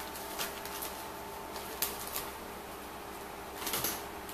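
Plastic bag of flour being handled and opened by hand: scattered crinkles and rustles, with a denser burst of crinkling near the end, over a faint steady hum.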